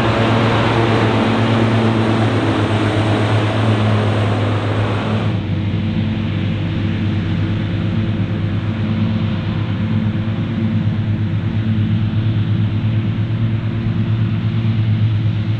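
Heavy farm machinery at work during grass harvesting: a large diesel engine running steadily with a low drone. About five seconds in, the sound changes abruptly as the hissing upper range drops away.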